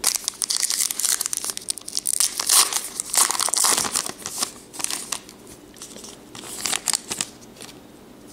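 A foil-lined trading-card pack wrapper being torn open and crinkled as the cards are pulled out: dense crackling for about the first five seconds, with another short burst of crinkling about six and a half seconds in.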